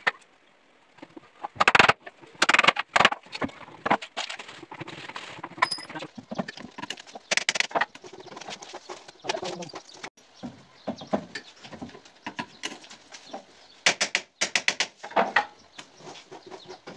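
Irregular knocks and clatter of plywood boards being handled and fitted, with clusters of sharp wooden taps about two seconds in and again near the end.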